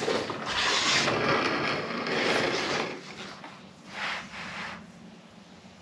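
Adhesion-promoter wipe rubbed back and forth across a bass boat's fiberglass keel: a scrubbing rub for about three seconds, then a shorter rub about four seconds in.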